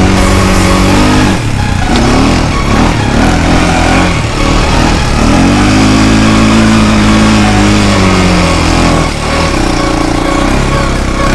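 Honda TRX400EX quad's single-cylinder four-stroke engine running hard on the throttle, its pitch rising and falling as it revs up and down. The throttle drops off briefly about a second in, near four seconds and about nine seconds in.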